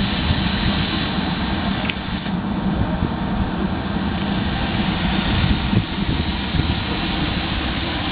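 Steam train giving off a steady rumble and hiss, with a thin high tone held throughout and no distinct chuffs.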